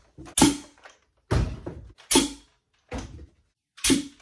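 Nerf Titan air-powered rocket launcher firing foam missiles: about five sharp "fwoomp" blasts of released air, each dying away within half a second, coming roughly a second apart.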